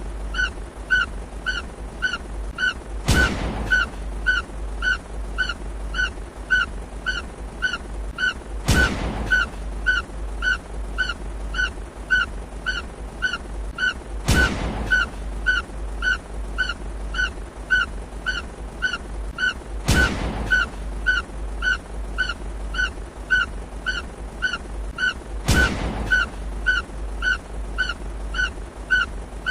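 Looped explosion sound effect. A boom comes every five to six seconds, five times, over a constant deep rumble, with short high blips repeating about twice a second throughout.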